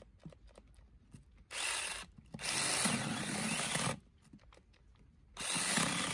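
Cordless mini chainsaw running in three short bursts as it is pressed into a log, stopping in between with small ticks. The saw is weak and keeps stopping, which the owner puts down to its worn 18650 lithium battery pack.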